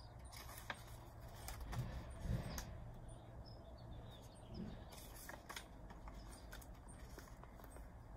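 Pages of a hardcover picture book being turned and handled: scattered soft paper rustles and taps over a faint steady low hum, with a few faint bird chirps.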